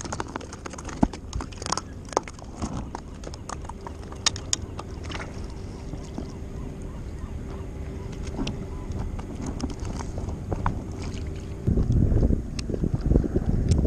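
Scattered clicks and knocks of fishing gear being handled on a paddleboard deck. Near the end, wind buffets the microphone in a low rumble.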